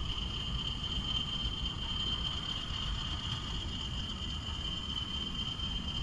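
A steady, unbroken high-pitched insect trill, cricket-like, over a low rumble.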